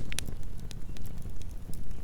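Campfire burning: a steady low rumble of the flames with sharp crackles and pops of burning wood, the loudest pop right at the start and another just after it, then smaller pops scattered throughout.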